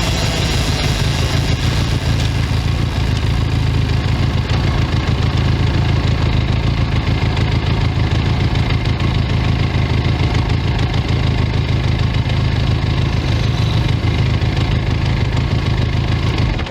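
Benelli 502C's 500 cc parallel-twin engine idling steadily through its stock exhaust, at an even pitch and level, until it cuts off suddenly at the end.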